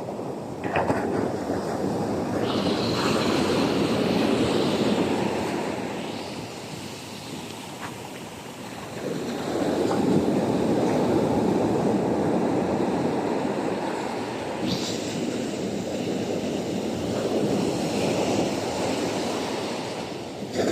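Ocean surf: waves breaking and washing up the shore in slow surges. The wash swells about two seconds in, eases off near the middle, and builds again for a long second surge.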